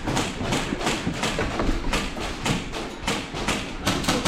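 Airsoft guns firing in close quarters: a rapid, irregular run of sharp cracks and BB impacts, several a second.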